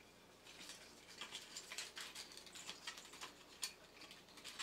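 Faint, irregular small clicks and taps of hands fitting a toy robot's clicker circuit board and its wires back into the tin body.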